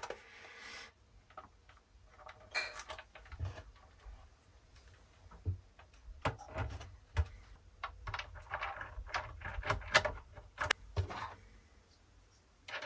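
Handling noise from reassembling a Glitter 811H spot welder: irregular light clicks, taps and knocks with a brief rustle at the start, as the ribbon cable is fitted to the control-panel board and the aluminium case is set back on.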